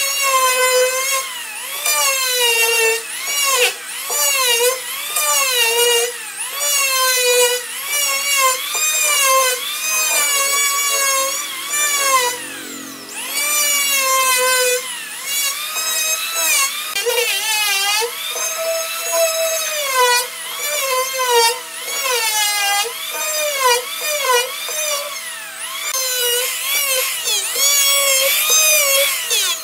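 Handheld electric planer running at high speed over a hardwood slab. Its whine dips and climbs back again and again as the blades bite into the wood on each stroke.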